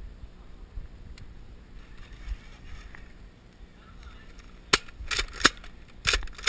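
Foam-dart blasters firing: a quick series of sharp shots starting near the end, several close together.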